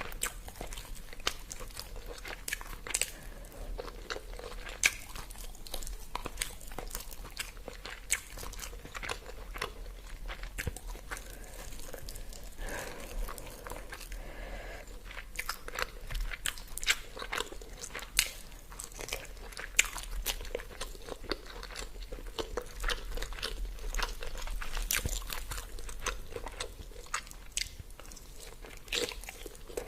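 A person eating close to the microphone: steady chewing and biting with many small wet clicks and crunches, as in a mukbang of roasted chicken curry with rice.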